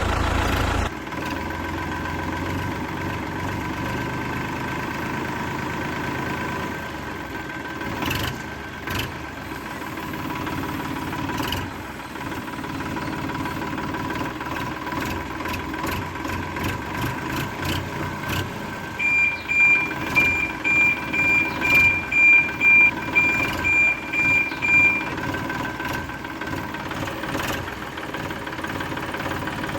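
Electronic engine sound effect from a battery-operated toy construction vehicle's small speaker, running steadily, with a few clicks and, from about two-thirds of the way in for several seconds, reversing beeps at about two a second.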